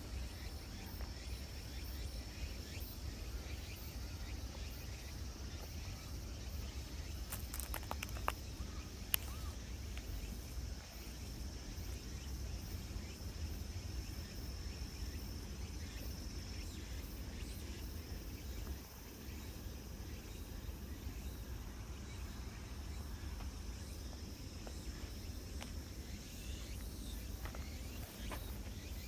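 Outdoor ambience: a steady high insect trill over a low rumble, with a few sharp clicks about eight seconds in.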